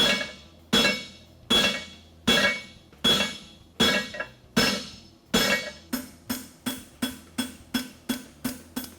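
Hand hammer striking hot 5/8-inch square steel in a farrier's tooling block on the anvil, each blow ringing. Heavy blows come about every three-quarters of a second, then about six seconds in they change to lighter, quicker blows about two and a half a second. The hammering drives the bar down into the tooling block for a fullered horseshoe.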